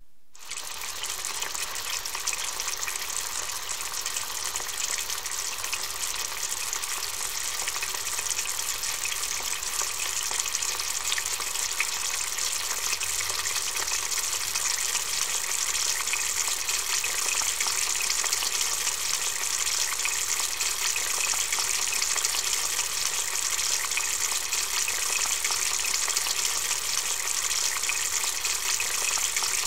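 Hot oil sizzling in a frying pan: a steady, dense crackling hiss that grows a little louder over time.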